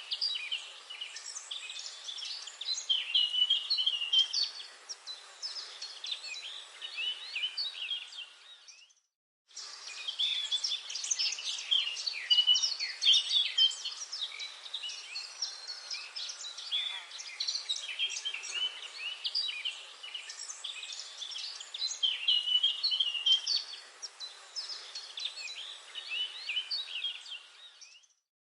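Forest bird chorus: many birds chirping and trilling over one another, over a faint steady hiss. It fades to a brief silence about nine seconds in, starts again, and fades out near the end.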